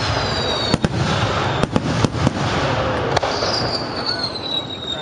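Fireworks display: aerial shells going off with several sharp bangs over a steady crackle and rumble. From about three seconds in, a long high whistle slides slowly down in pitch.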